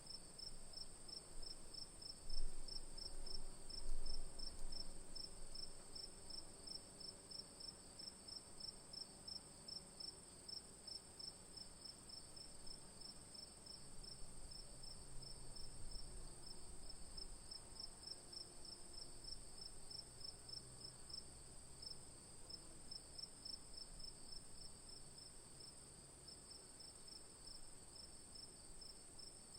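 Crickets chirping in an evening chorus: one steady high continuous trill alongside a slightly lower, rhythmic chirping that repeats several times a second. Two brief low bumps sound a few seconds in.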